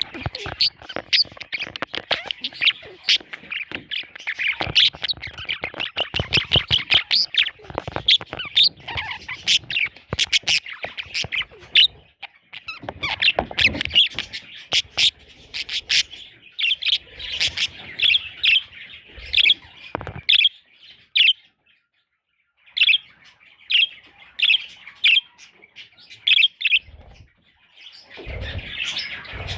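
Baby budgerigars (parakeet chicks) chirping, many quick high calls overlapping. After a short pause about two-thirds of the way through, the chirps come singly and evenly spaced.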